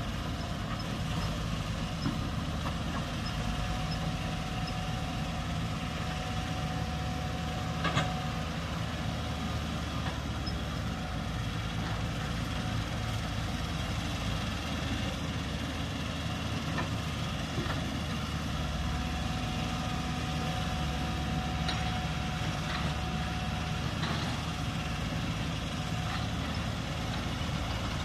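Diesel excavator engine running steadily, with a sharp knock about eight seconds in and a few lighter knocks later.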